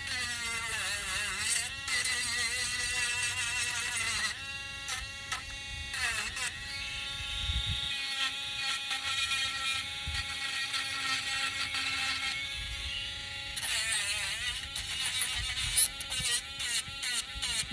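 Small electric sander's motor running with a steady pitched hum that sags and recovers as wood is pressed against it. Near the end, a rasping hiss with sharp scratches as sandpaper grinds the wood.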